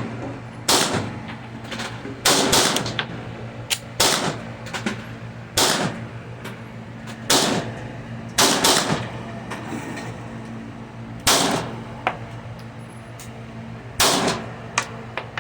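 Gen 5 Glock 26 9mm subcompact pistol being fired: about ten sharp shots at uneven intervals, some in quick pairs, over a steady low hum.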